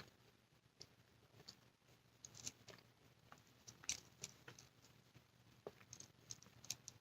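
Faint chewing of baklava, flaky pastry with crushed nuts: soft, irregular crunches and mouth clicks scattered through a near-silent room.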